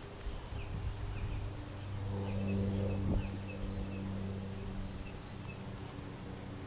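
Outdoor ambience: a steady low hum, with short high chirps repeating every half second or so and one brief click about three seconds in.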